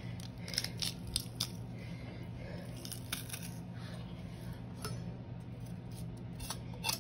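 Hand-held metal garlic press being squeezed over a bowl, giving scattered short clicks and metallic snaps from its hinged handles as the cloves are crushed. A low steady hum runs underneath.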